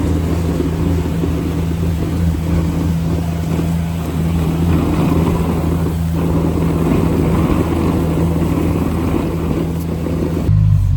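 CFMOTO UForce U10 side-by-side engine running steadily under load while plowing snow, with a rough scraping rush over it. The scraping stops near the end and the engine note changes.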